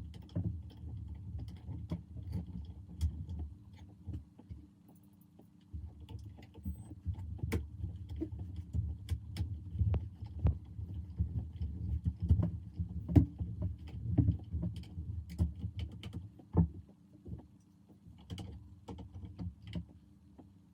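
Small 8mm screws being driven by hand with a screwdriver into plastic model-kit parts: irregular clicks and scrapes with handling knocks over a low rumble.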